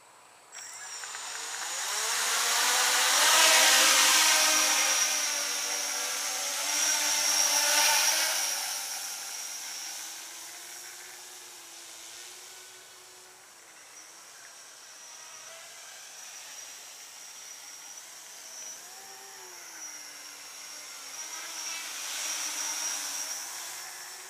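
A home-built quadcopter's four brushless motors and propellers spinning up and buzzing loudly as it lifts off. The pitch of the buzz rises and falls with the throttle. The buzz fades as the craft flies off and grows louder again near the end as it comes back to hover close by.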